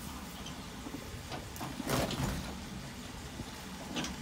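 Pickup truck engine running steadily at low revs while it backs a boat trailer down the ramp, with a few short knocks, the loudest about two seconds in.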